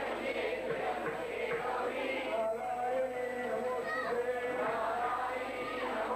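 Many voices chanting devotional verses together, overlapping without a break.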